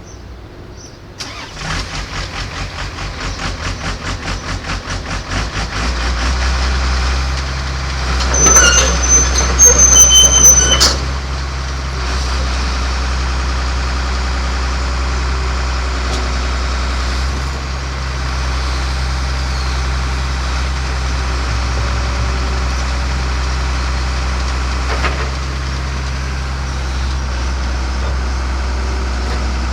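Komatsu PC200-6 excavator's diesel engine being cranked over by the starter in an even rhythm of about three strokes a second, catching about six seconds in and settling into a steady idle. A louder burst of noise with a high whistle comes about eight seconds in and stops about three seconds later.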